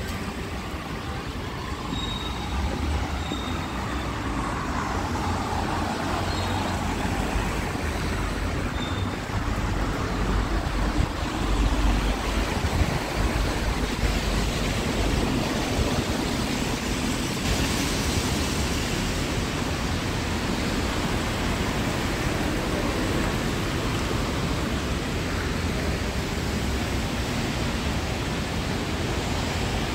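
Steady city street traffic: the rush of passing cars and buses. A heavier low rumble swells about ten to thirteen seconds in.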